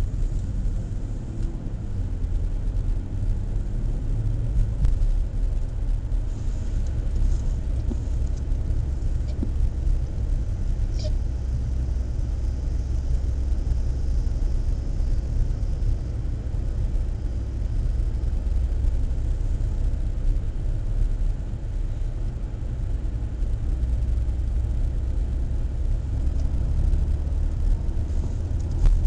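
Steady low road and engine rumble of a car driving a winding country road, heard from inside the cabin through a dashboard camera.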